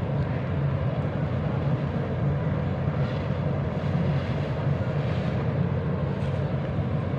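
Steady low drone of engine noise, even and unbroken.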